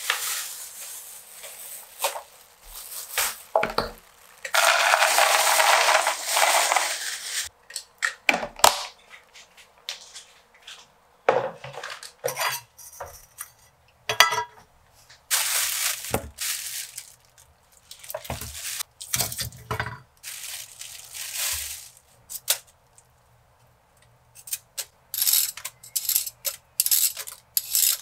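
Kitchen work at a sink: clinks of metal utensils and a stainless sink strainer, and a few seconds of steady running water. Near the end come quick repeated strokes of a vegetable peeler scraping the skin off a cucumber.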